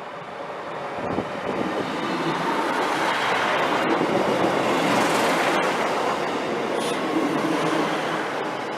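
A train passing on the rails, its wheel and track noise building from about a second in, loudest midway with a few sharp clicks, then fading near the end.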